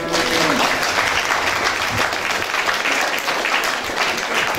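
Audience applauding, many pairs of hands clapping steadily.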